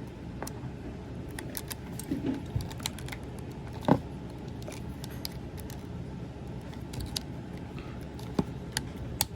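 Small plastic parts of a Transformers action figure clicking, tapping and rattling as they are handled and pressed into place, with a sharper knock about four seconds in. A steady low background hum runs underneath.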